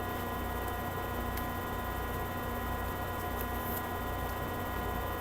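Steady electrical hum with a faint hiss, the background room tone of the recording setup, holding at an even level.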